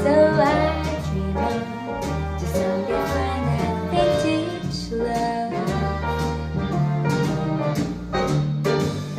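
A song with a singing voice over a deep bass line, played back through the Sonus Faber Omnia wireless speaker as a listening demo.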